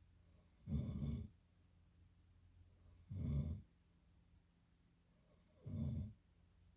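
Snoring: three snores about two and a half seconds apart, each lasting about half a second, with quiet breathing pauses between them.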